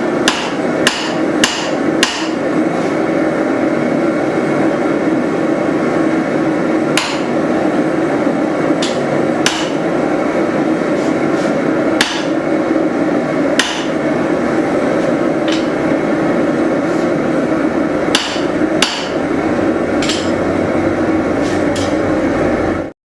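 Hand hammer striking hot steel at the anvil while a hatchet head is forged, single sharp blows at an irregular pace, sometimes in quick pairs and sometimes seconds apart, over a loud steady rushing noise. All of it cuts off suddenly near the end.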